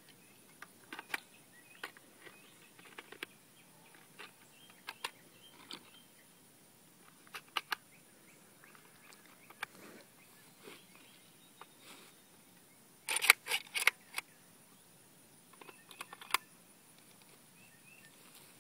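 12-gauge 2 3/4-inch high-brass shells being pressed one by one into a Saiga 12 box magazine: scattered sharp clicks, with a louder cluster of clacks about two-thirds of the way through.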